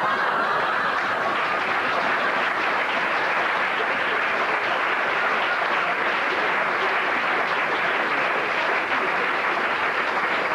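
Studio audience applauding steadily, a dense even clapping that holds at one level throughout.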